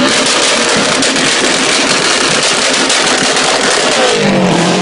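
Subaru Impreza rally car's turbocharged flat-four engine revved hard and held high while the car stands still. About four seconds in, the revs fall away and settle back toward a low idle.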